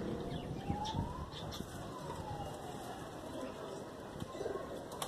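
A faint siren, its pitch rising slowly and then falling once, over steady outdoor background noise.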